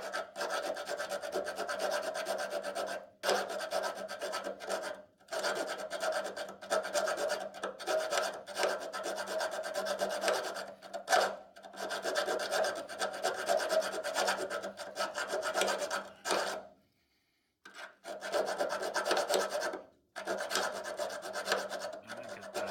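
Rasping of a tool cutting back weld in the pin hole of a steel car door hinge, metal on metal, running in long stretches broken by several short pauses.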